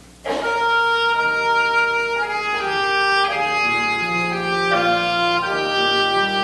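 Instrumental music starts just after a brief pause: several held melody lines moving note by note at an even, steady level.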